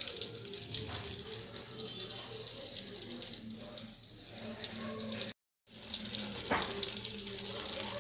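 Water spraying from a garden hose onto soil and plants, a steady hiss. The sound drops out completely for a moment about five seconds in, then the hiss resumes.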